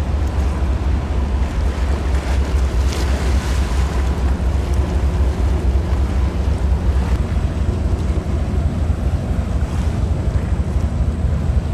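Wind buffeting the microphone in a deep, uneven rumble, with the wash of waves in the strait.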